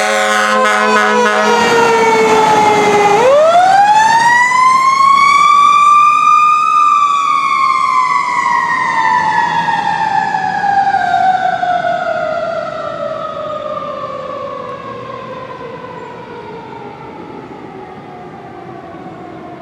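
Fire engine's air horn sounding over its siren for the first second and a half, then the siren wails alone: dipping, rising to a peak about seven seconds in, then slowly falling in pitch as it fades into the distance.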